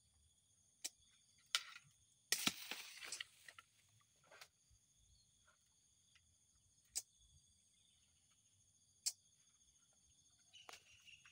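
Faint, steady high-pitched drone of insects such as crickets or cicadas, broken by scattered sharp clicks and a brief rustling burst about two seconds in.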